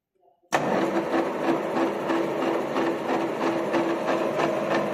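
Centre lathe running: a steady mechanical hum with a fast, even rattle from its gearing, cutting in suddenly about half a second in.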